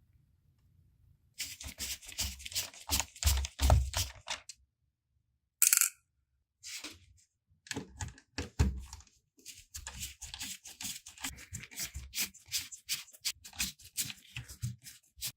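Hard plastic parts of a laptop being handled and worked on: fast, irregular scraping and clicking in runs of a few seconds, with one short, sharp burst near six seconds in.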